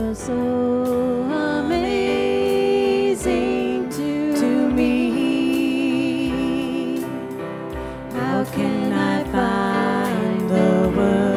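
Contemporary Christian worship song: a voice holds long notes with vibrato over band accompaniment, with a low beat about every second and a half and cymbal strikes.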